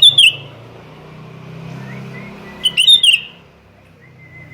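Sooty-headed bulbul calling: two short bursts of quick, loud chirpy notes about two and a half seconds apart, each led in by a thin whistle, over a faint low rumble.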